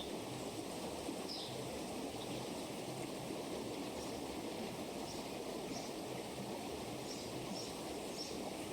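Steady rush of flowing stream water, with occasional faint bird chirps.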